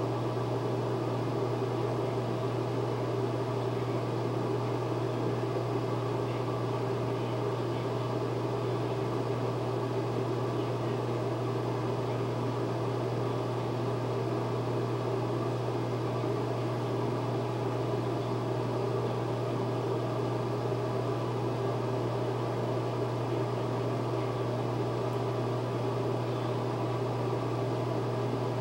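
Steady, unchanging machine hum: a strong low drone with an even airy rushing noise over it, like a running fan or motor.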